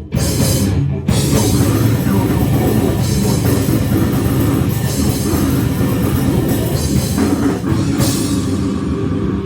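Loud, distorted heavy rock music with drums and guitar, with short breaks just after the start and about a second in.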